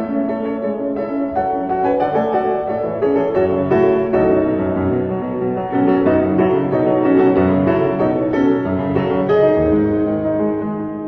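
Instrumental piano music, fading out near the end.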